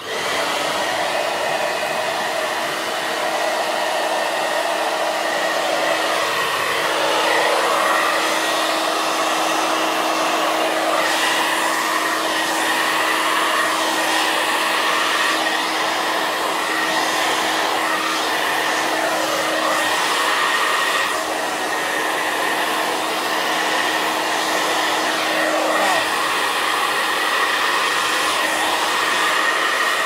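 Hair dryer switching on and running loud and steady, a rush of air with a steady motor hum, blowing wet acrylic pour paint out across a canvas.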